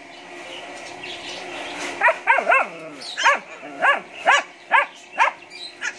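A puppy yipping: a run of about eight short, high yips starting about two seconds in, the first three in quick succession and the rest about half a second apart.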